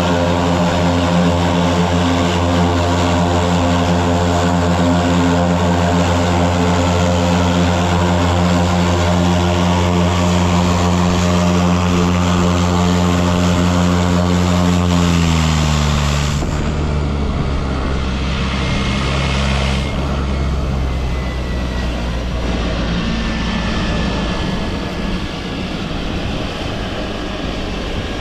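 Float plane's propeller engine running loudly and steadily, then dropping in pitch about halfway through as it throttles back, and running on lower and quieter.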